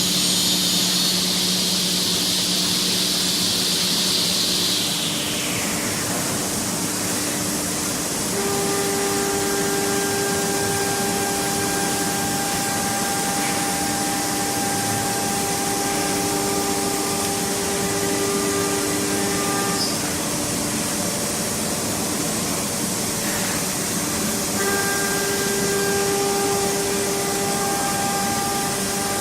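CNC wood router's spindle motors whining over a steady machine hiss. A high whine falls away about five seconds in; a new steady whine starts about eight seconds in, drops out near twenty seconds and returns about twenty-five seconds in.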